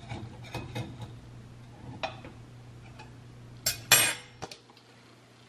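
A table knife scraping and clicking against the sides of a metal loaf pan, loosening baked oats stuck to the ungreased pan. Near four seconds in come two sharp metallic clinks, the loudest sounds here.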